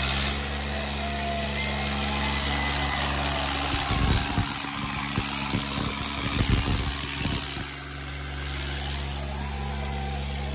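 Diesel engines of a Swaraj 855 FE and an Indo Farm 3055 tractor running steadily under heavy load as the two tractors pull against each other. There is a run of knocks about four to seven seconds in.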